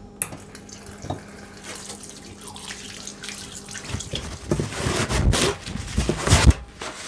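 Water from a train-toilet washbasin tap running and splashing over hands being washed, loudest in the second half and stopping shortly before the end.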